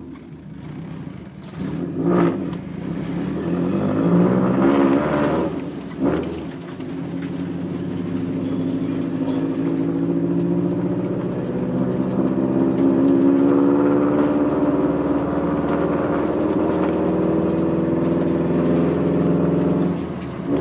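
Subaru STI's rebuilt turbocharged flat-four on solid engine mounts, heard from inside the cabin while driving. The engine revs rise through a gear and drop sharply at an upshift, then it pulls steadily at a light, even throttle.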